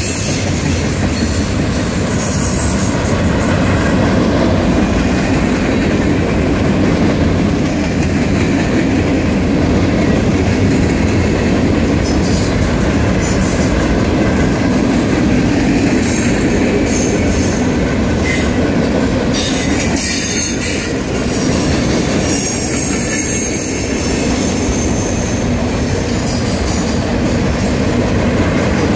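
Norfolk Southern mixed freight train rolling past: a loud, steady rumble and rattle of boxcars and lumber flatcars running on the rails.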